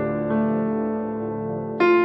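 Instrumental background music of slow, sustained keyboard-like chords, with a new chord struck near the end.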